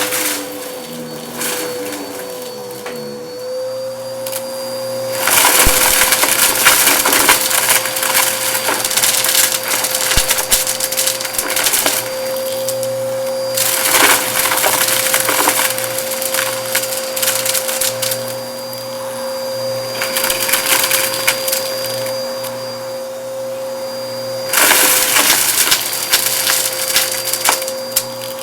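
Bissell vacuum cleaner running with a steady motor whine while it picks up debris from a shag rug, the debris crunching and crackling through it in long stretches: about five seconds in, briefly around the middle, and again near the end.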